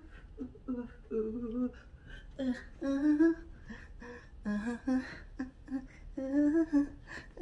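A woman humming a tune in short phrases, some notes held for about half a second, with no words.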